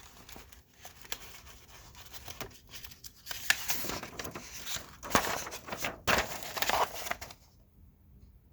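Kit packaging being handled: a run of crinkling and rustling that grows louder about three seconds in, with sharp crackles, and stops about a second before the end.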